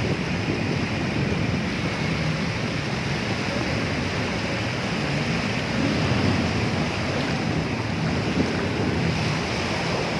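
Steady rush of wind buffeting the microphone over the wash of sea waves.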